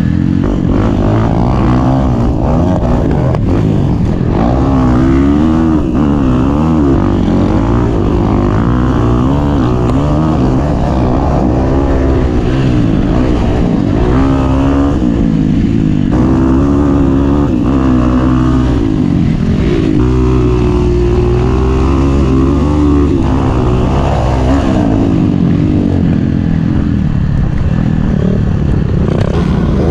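Dirt bike engine being ridden on a motocross track, revving up and easing off over and over, its pitch rising and falling every second or two.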